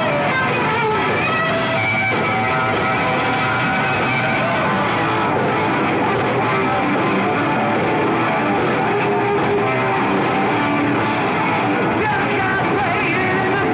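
Heavy metal band playing live: electric guitars over drums, with cymbal crashes throughout.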